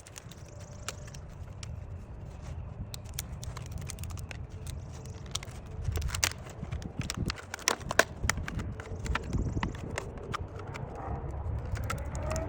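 A run of irregular knocks and clicks over a low rumble, typical of wooden boards and tools being handled on a work surface; the loudest knock comes about two-thirds of the way through, and no saw is running.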